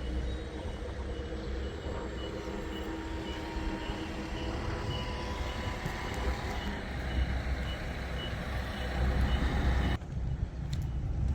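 A rice combine harvester's engine running with a steady low drone while its warning beeper sounds a series of short high beeps, about one and a half a second, which stop a few seconds before the end. Near the end the sound changes abruptly to a different rumble.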